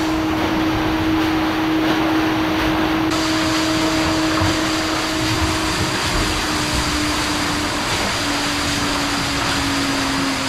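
Counter-current swim machine (swim jet) running at high speed: a loud, steady rush of churning water over the pump motor's hum. The rush turns hissier about three seconds in, and the hum sinks slightly in pitch in the second half.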